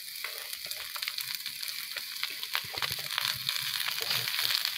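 Shredded cabbage, carrot and capsicum sizzling in hot oil in an iron kadhai, tossed with a steel spatula that scrapes and clicks against the pan many times.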